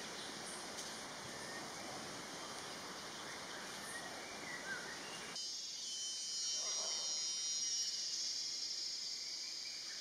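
Tropical forest ambience of a steady, high-pitched insect chorus. About five seconds in it switches abruptly to a slightly louder, higher, finer insect drone.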